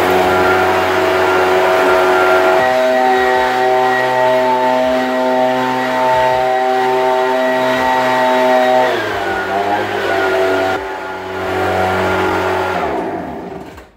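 Ryobi backpack leaf blower's small engine running, blowing leaves and dust across a concrete garage floor. Its engine speed steps up a couple of seconds in, drops back briefly around the middle, picks up again, and winds down near the end.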